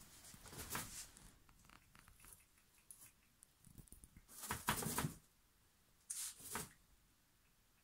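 Dry straw and hay rustling and crackling in a few short bursts, the loudest about halfway through, as a rabbit moves about in its litter tray.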